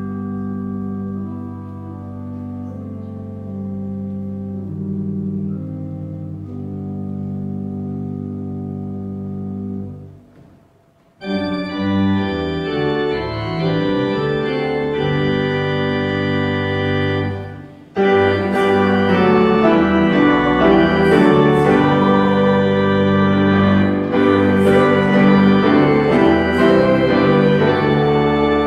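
Organ playing sustained chords: soft at first, breaking off about ten seconds in, then coming back louder, and swelling fuller still after a brief dip about eighteen seconds in.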